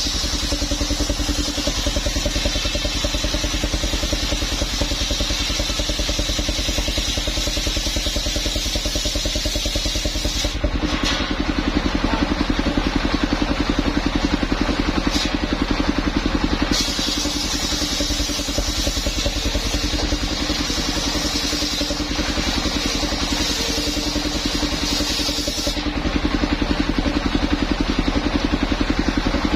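Engine-driven circular saw machine running steadily, its engine pulsing low down. A higher hiss of the blade cutting through coconut trunk comes and goes, breaking off briefly a few times.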